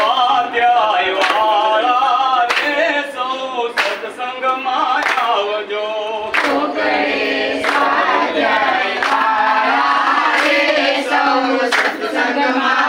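A group of women and men singing a Gujarati devotional song (bhajan) together in unison, keeping time with a hand clap about every second and a quarter.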